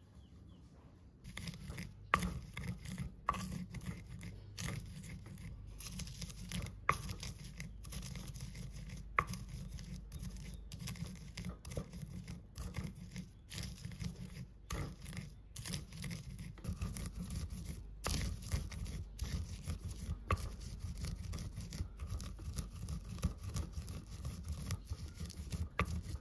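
Fried peanuts being crushed and ground with a stone pestle in a stone mortar (Indonesian cobek and ulekan). It makes a continuous crunching and grinding scrape of stone through the nuts, starting about a second in, with frequent sharp knocks as the pestle strikes.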